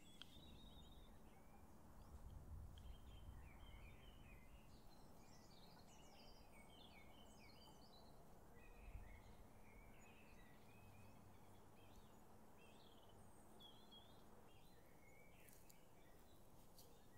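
Faint birdsong: small birds chirping over and over against a quiet outdoor background, with a low rumble about two to four seconds in.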